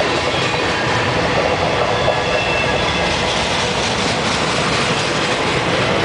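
Freight cars of a long mixed freight train rolling past close by: a steady rumble and clatter of steel wheels on the rails, with a faint high wheel squeal over it.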